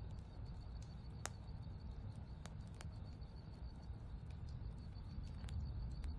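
Quiet natural ambience: a low steady rumble with a faint insect trill pulsing evenly high above it, and a handful of sharp clicks, the sharpest about a second in.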